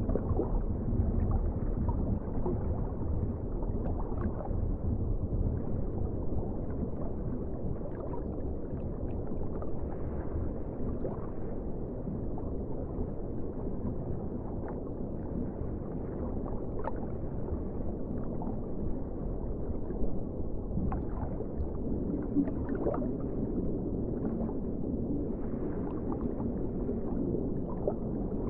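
Underwater ocean ambience: a steady low rumble and wash, with scattered faint clicks and pops.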